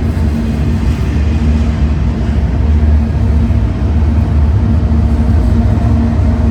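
Union Pacific freight train rolling past with a steady low rumble and a faint steady hum above it.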